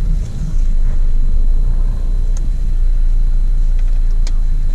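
Low, steady rumble inside a car's cabin as it drives slowly, with a few faint clicks.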